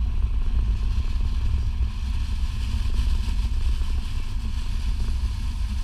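Steady low rumble of a car driving along a road, heard from inside the cabin: road and engine noise.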